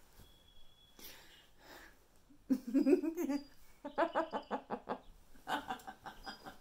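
A woman laughing in three short bursts, the middle one a run of quick giggles.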